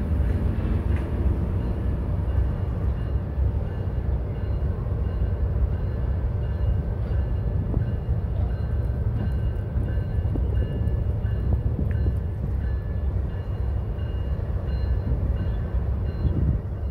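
Steady low rumble of CSX GE diesel-electric locomotives as the train creeps slowly forward, with a faint high whine that comes and goes.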